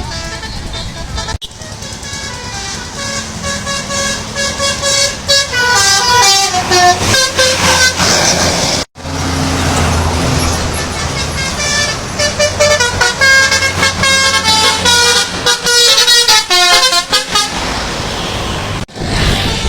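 Indonesian 'telolet' bus horns, multi-tone air horns playing quick tunes of short stepped notes, with a low bus rumble underneath. The sound is made of several clips joined by abrupt cuts, about a second and a half in, near the middle and near the end.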